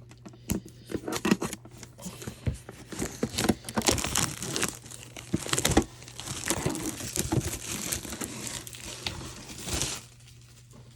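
Plastic wrapping being torn and crinkled off a tin: a dense, continuous run of crackling and rustling that stops about ten seconds in.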